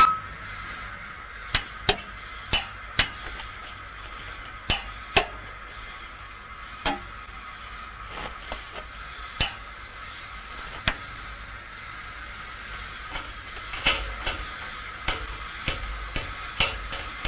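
Inspection hammers tapping a steam locomotive's wheels and running gear: about fifteen sharp metallic taps, each ringing briefly, at irregular intervals and bunched more closely near the end. This is the tap test of a pre-departure check, listening to the ring for loose or cracked parts. A faint steady high hum runs beneath.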